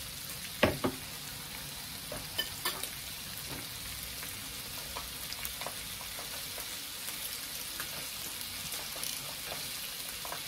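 Pork and beef sizzling on a hot tabletop teppanyaki grill plate, a steady frying hiss. A sharp knock about a second in and scattered light clicks sound over it.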